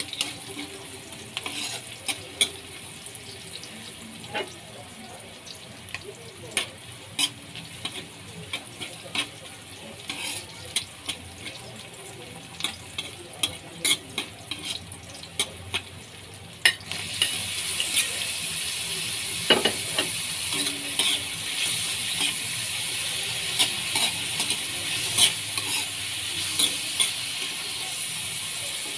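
Metal ladle scraping and knocking against a wok as sliced onions and garlic sauté with a light sizzle. A little past halfway the sizzle jumps louder and stays up as beef ruffle fat (bulaklak ng baka) goes into the wok, with the ladle still clinking through it.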